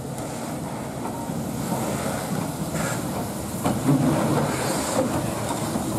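LNER Q6 0-8-0 steam locomotive No. 63395 running slowly past tender-first: a steady rumble with a few sharp knocks of the wheels over the rail joints, loudest about four seconds in.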